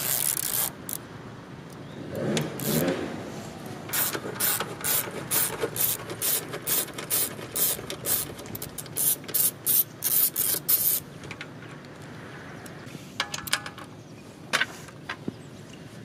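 Hand ratchet clicking in quick back-and-forth strokes as a bolt is turned, about three clicks a second from about four seconds in until about eleven, then a few stray clicks.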